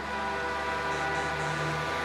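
Semi truck's air horn sounding one long blast of about two seconds, starting suddenly, over the steady running of the truck's engine.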